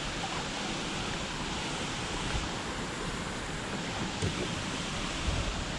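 Steady rushing of flowing river water, with an unsteady low rumble of wind on the microphone.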